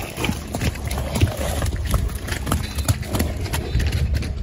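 Hoofbeats of unshod horses moving on soft, rain-wet dirt: a run of irregular dull thuds.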